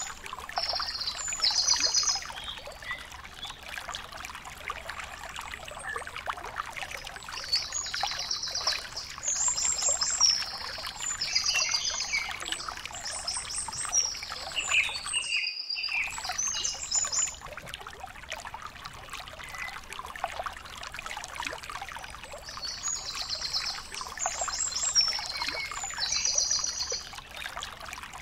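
Outdoor ambience: a steady crackling, trickling hiss with repeated bursts of high, rapidly pulsed chirping, cut by a brief dropout about halfway through.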